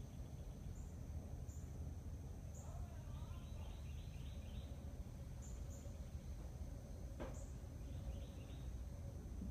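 Outdoor background: a steady low rumble, with faint chirping in short rapid runs a few seconds in and again near the end, and a single sharp click a little after seven seconds.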